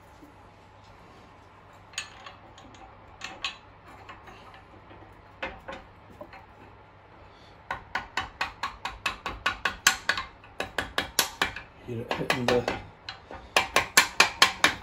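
Soft-faced mallet tapping a rocker shaft into a Yamaha XS650 cam cover to seat the rocker arm. A few scattered light taps come first, then rapid runs of sharp taps, about five a second, from about halfway through.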